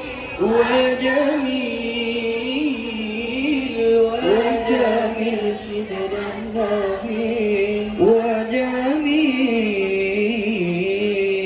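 Men singing an Islamic devotional song (sholawat) through a microphone and PA: a lead voice in long, ornamented held notes, in three phrases that each begin with an upward swoop.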